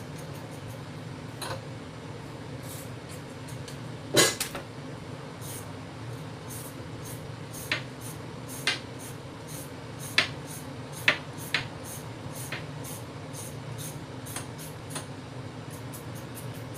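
Hand vegetable peeler scraping down a carrot in repeated short strokes, with a few sharper knocks of the peeler and carrot, the loudest about four seconds in, over a steady low hum.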